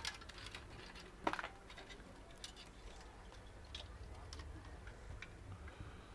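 Faint scattered clicks and light taps of a computer case and its parts being handled, with one sharper knock about a second in.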